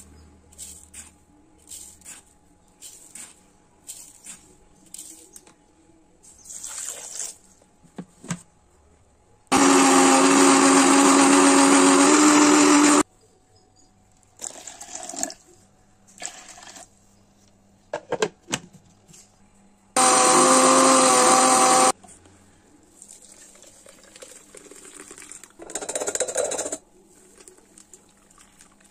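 Electric mixer-grinder blending carrot slices with sugar, running in two bursts: about three and a half seconds, then about two seconds, each starting and stopping abruptly. Short taps and knocks come before and between the runs.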